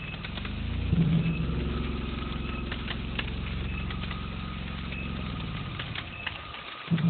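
Cicada killer wasp buzzing in flight: a low drone whose pitch shifts a little as it moves. It grows loud about a second in, fades later, and cuts out briefly just before coming back loud at the end.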